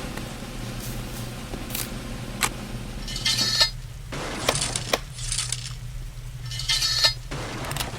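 A few single sharp clicks, then four short bursts of metallic clinking and rattling, like small metal pieces jingling together, over a steady low hum.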